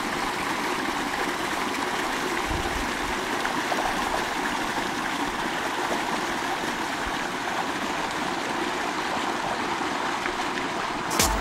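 A small mountain stream running over rocks: a steady rush of flowing water.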